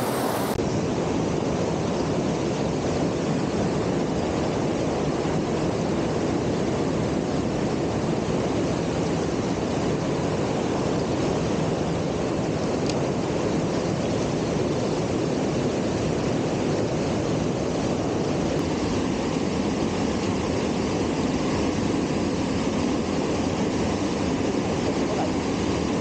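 Waterfall and cascading mountain stream rushing, a loud, steady, even roar of white water that does not change.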